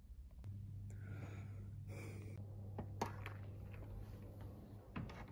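Lever door handle being worked: a sharp click about three seconds in and another near the end. A steady low hum runs beneath from about half a second in until shortly before the second click.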